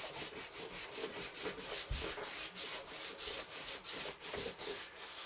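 Fast, even back-and-forth strokes of a hand tool rubbing on a car body part, about five a second, scratchy and dry: old decal or finish being worked off by hand.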